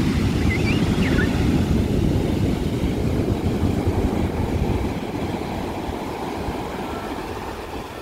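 Rough sea surf breaking and washing up a sandy beach: a heavy, low rushing noise that eases after about five seconds as the wash spreads up the sand.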